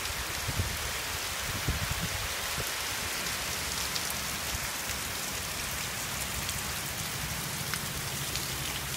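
Heavy rain coming down really hard, a steady hiss of downpour on grass, pavement and a deck.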